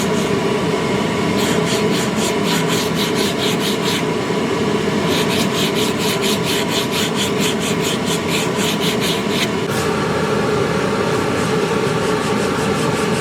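Wood being sanded: a steady machine hum under a rapid, regular scratching that stops and starts twice, then the hum runs on alone for the last few seconds.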